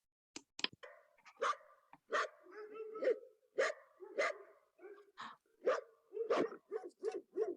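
A dog barking: a run of short, separate barks that come faster toward the end.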